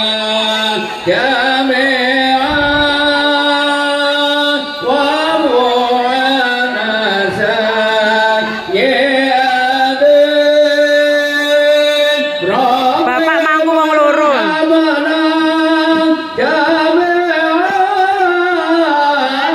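A male voice singing long, ornamented phrases through a loudspeaker system, each note held and wavering in pitch, with a short break for breath about every four seconds.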